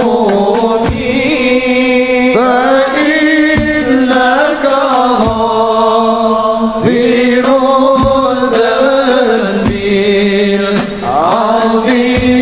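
Islamic sholawat music: long, drawn-out sung lines over regular low strokes of hadrah frame drums.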